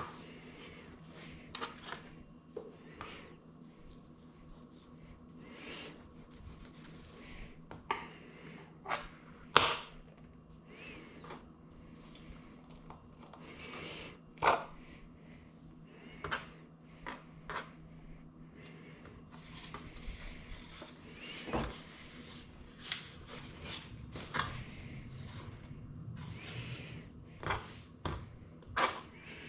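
Kitchen handling noises: scattered, irregular knocks, taps and clicks of utensils and dishes, a few of them sharper and louder, over a steady low hum.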